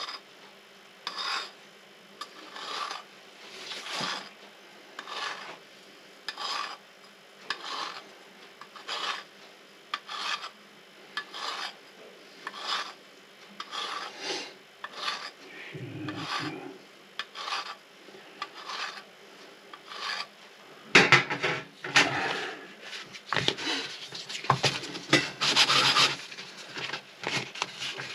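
Hand file rasping across a small silver cup in even strokes, a little over one a second. About twenty seconds in the strokes turn louder, quicker and rougher: metal scraping and rubbing on metal.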